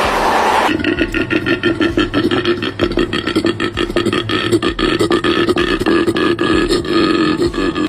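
An animal's low, rapidly pulsing, croak-like rattling call, starting about a second in, over a steady bass beat in the background music.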